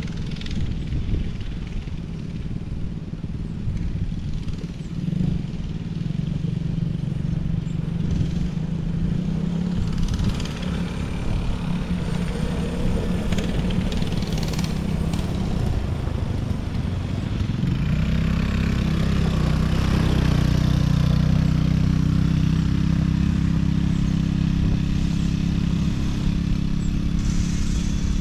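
ATV engines running at a steady pitch, growing louder about eighteen seconds in.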